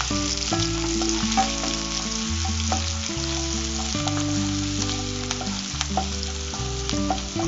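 Chopped onions and dried red chillies sizzling in hot oil in a kadai, stirred and scraped with a wooden spatula. Background music with held notes plays underneath.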